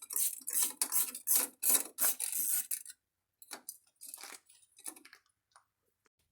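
Hand tools working on metal car parts: a quick run of rasping, scraping strokes for about three seconds, then a few faint clicks and clinks.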